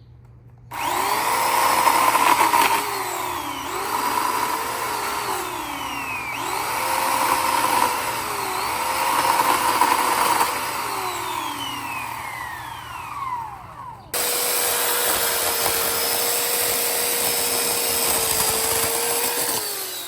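Sun Joe SWJ698E 9-amp electric chainsaw with a 12-inch bar starting up about a second in and cutting, its motor pitch dropping and recovering several times as the chain bites under load. After a brief break about fourteen seconds in, it runs again at a steady pitch without load.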